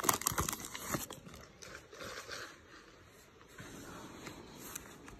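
Foil wrapper of a baseball card pack crinkling as it is pulled open, loudest in about the first second. It is followed by fainter rustling and light clicks as the cards are handled.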